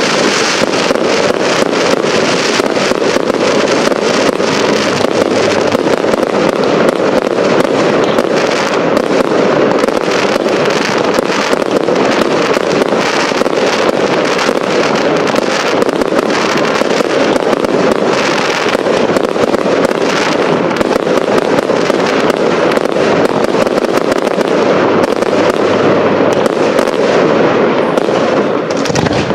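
Fireworks display: a continuous barrage of aerial shells bursting, a dense run of rapid bangs and crackling with no gaps.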